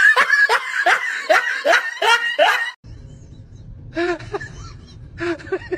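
A person laughing in a quick run of short bursts, about four a second, which cuts off abruptly about halfway through. A quieter low hum follows, with a few short faint sounds.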